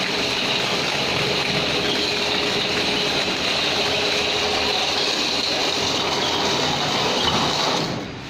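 Automatic wall-plastering machine running steadily: a continuous mechanical noise with a thin high whine through it, dropping away sharply near the end.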